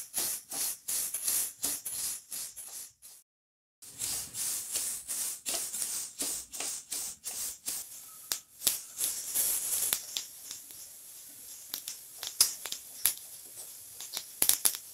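Sesame seeds dry-roasting in a steel kadhai, swept round with a wooden spatula: a rhythmic swishing rattle of seeds across the metal, about three strokes a second. In the second half, sharp crackles join in from seeds popping in the heat, the light crackling that shows the sesame has begun to roast.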